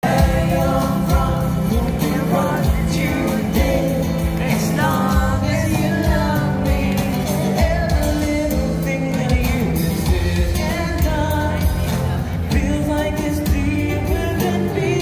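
Live band playing a song: two singers singing into microphones over acoustic guitar, keyboard and drums.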